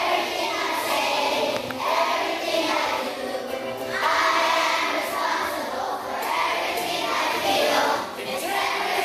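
A large group of schoolchildren singing a song together with a man leading them, in sung phrases with short breaks, over a strummed ukulele.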